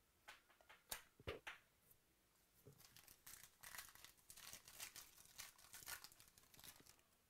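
Faint tearing and crinkling of a trading-card pack wrapper being ripped open by hand, after a few sharp clicks in the first second and a half.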